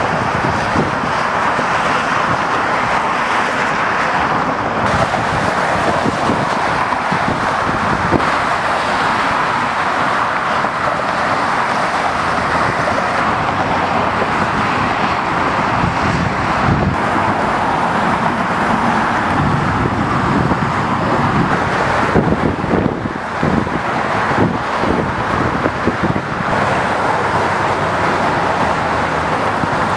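Steady road traffic noise: cars passing continuously on a bridge roadway.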